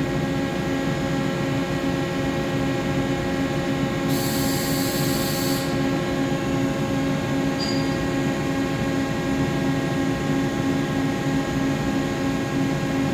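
Mori Seiki SL-154SY CNC lathe running through its machining cycle: a steady machine hum made up of several constant tones. About four seconds in, a hiss comes in for about a second and a half.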